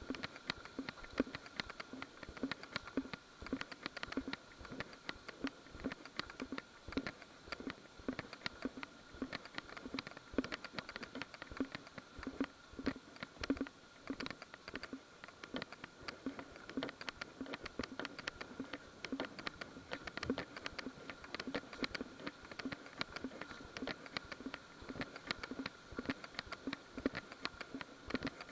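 Footsteps crunching through dry leaf litter on a woodland path: a steady walking rhythm of about two steps a second under a continuous crackle of leaves and twigs.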